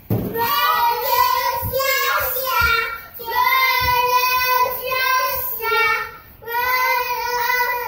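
A child's voice singing a song in three long phrases of held notes, with short breaks between them.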